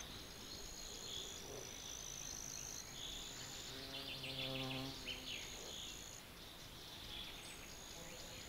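Faint riverside ambience: insects trilling in high, steady stretches, with small bird chirps. A low hum sounds for about a second near the middle.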